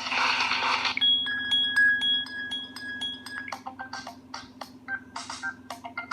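Samsung Galaxy Y ringtones playing. A dense, hissy tone cuts off about a second in, and the next ringtone starts with quick clicking notes over a held high tone, then settles into a rhythmic run of short notes.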